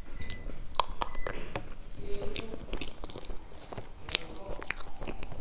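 Close-miked eating: a soft layered mousse cake being chewed off a metal spoon, with irregular sharp wet mouth clicks and lip smacks.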